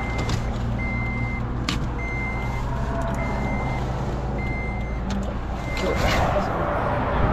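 A high electronic warning beep repeating about once a second, each beep about half a second long, over a steady low idling engine, with a couple of sharp knocks.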